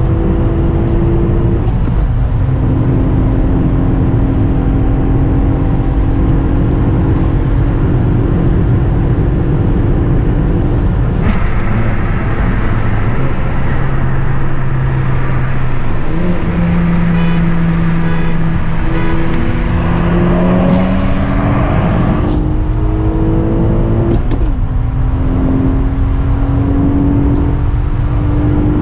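Acura TL SH-AWD's 3.7-litre V6, with a J-pipe and Borla mufflers, heard from inside the cabin under hard acceleration. Its pitch climbs slowly through each gear and drops at the upshifts, over road and wind noise.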